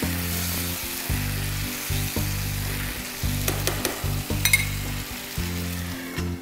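Chicken and green bean curry sizzling in a pan with freshly added water as a steel spatula stirs it. A few sharp clicks of the spatula against the pan come about three and a half to four and a half seconds in.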